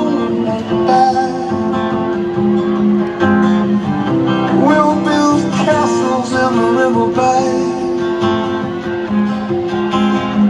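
Live acoustic guitar music played through a concert sound system, with notes ringing on steadily.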